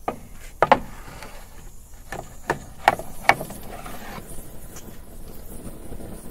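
A punctured aerosol can venting burning propellant, its flame flaring up with a string of sharp pops over the first few seconds. A steady hiss runs under the pops and eases off after about four seconds.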